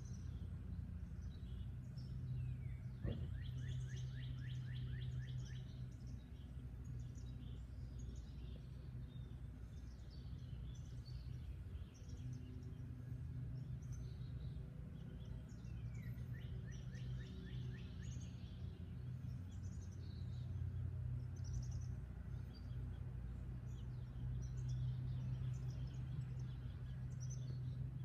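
Outdoor ambience: a steady low hum with small birds chirping throughout. Twice a bird gives a rapid trill of repeated notes, about three seconds in and again about sixteen seconds in.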